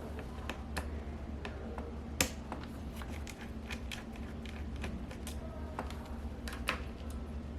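Small irregular clicks and ticks of a Phillips screwdriver backing a screw out of a laptop display panel, with a sharper click about two seconds in, over a steady low hum.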